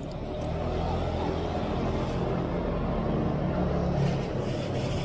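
A motor vehicle's engine running close by on the street, a steady low hum that swells briefly about four seconds in, with plastic-bag rustling near the end.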